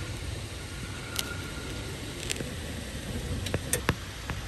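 Heavy thunderstorm rain pouring steadily, with a low rumble under it. A few sharp ticks sound once about a second in, once just past two seconds, and several times close together near the end.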